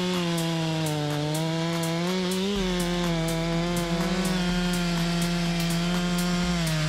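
Stihl MS 462's 72.2 cc two-stroke chainsaw engine running at high revs while cutting through wood. Its pitch sags and picks up slightly as the chain loads in the cut.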